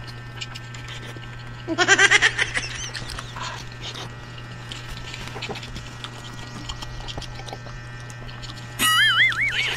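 Close-up eating sounds: a scatter of soft mouth clicks and smacks over a steady low hum. These are broken twice by a loud warbling cry whose pitch wobbles rapidly, once about two seconds in and again near the end.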